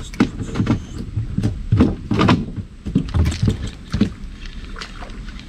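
Spinning reel being wound in as a small fish is brought up to the boat, with irregular knocks and splashing sounds, most of them in the first four seconds.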